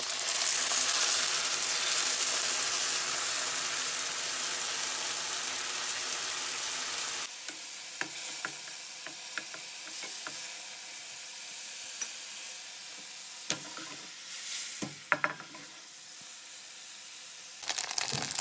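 Sauce hitting hot oil in a pan of frying tofu: a loud sizzle that eases a little, then drops abruptly to a quieter sizzle about seven seconds in. Scattered sharp clicks follow, and the pan grows louder and busier again near the end.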